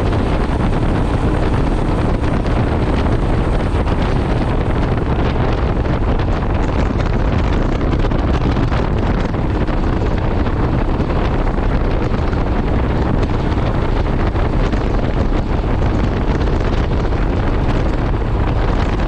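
Steady wind rushing over a GoPro's microphone on a moving motorcycle, with the Royal Enfield Himalayan's single-cylinder engine and tyres running underneath at an even cruising speed.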